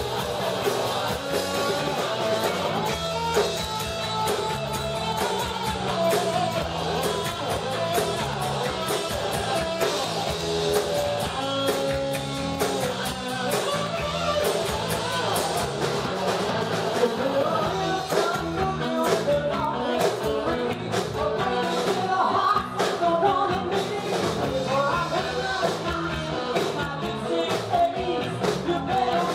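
Live rock band playing, with bass guitar, electric guitar and a Ludwig drum kit, and a woman singing lead into a microphone.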